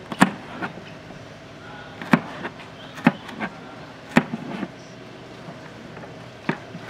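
Kitchen knife chopping garlic cloves on a plastic cutting board: about ten sharp knocks of the blade hitting the board, unevenly spaced, with the loudest near the start and a longer gap before the last one.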